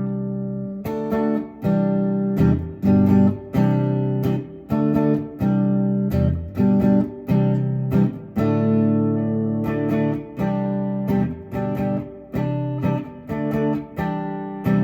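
Acoustic guitar strumming chords in a steady rhythm, about two strums a second, with the chords changing as it goes.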